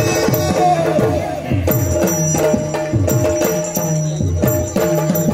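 Yakshagana ensemble playing an instrumental passage: repeated drum strokes that drop in pitch after each hit, over a steady drone, with small hand cymbals ringing on the beat.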